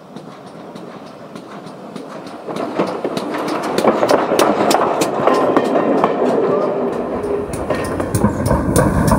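GWR pannier tank steam locomotive 1369 passing slowly with its coaches, its wheels clicking in an even rhythm over the rail joints and points, growing louder as it comes close. Near the end a low rumble takes over.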